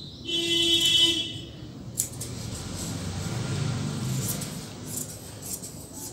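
Tailoring scissors cutting through folded cotton fabric, a rough scraping sound with a few sharp clicks of the blades. For about a second near the start a loud, sustained tone with many overtones sounds over it.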